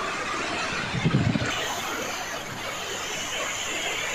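Steady rushing of a river in flood, water pouring and churning, with a brief low rumble about a second in.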